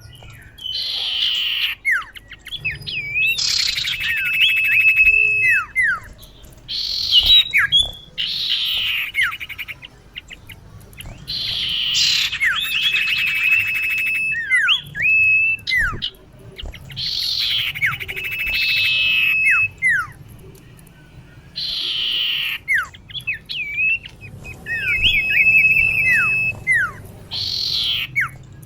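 Female common iora calling over and over, each phrase a harsh rasp followed by quick falling whistled notes and a thin held whistle, repeating every second or two.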